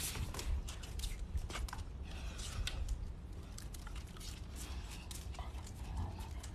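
Cane Corso dogs' claws clicking irregularly on a tiled patio as two dogs tussle and walk together over a rope toy, with light scuffling.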